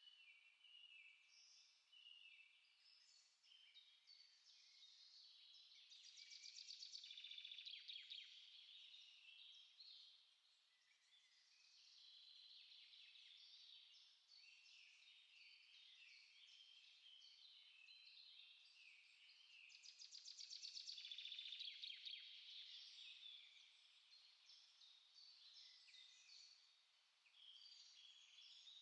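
A quiet chorus of small songbirds singing, a dense, continuous mix of high chirps and twitters. Two louder rapid trills swell up about 7 seconds in and again about 21 seconds in.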